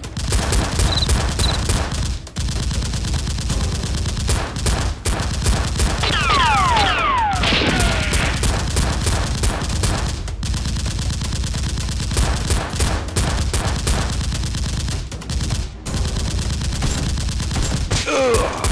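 Gunfire sound effects: a sustained, rapid burst of automatic fire that goes on almost without a break. A few falling, whistle-like glides come about six to eight seconds in, and a shout comes near the end.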